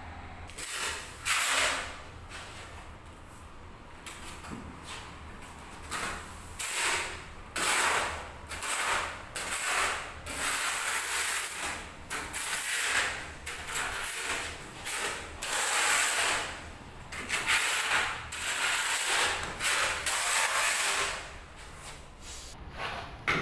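Steel notched trowel scraping cement tile adhesive across the back of a large tile slab, in repeated strokes each about half a second to a second long.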